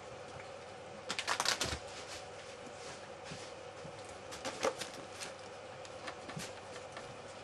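Light, sharp clicks and rustles: a quick flurry about a second in, another short one a little past the middle, and scattered single ticks, over a faint steady hum.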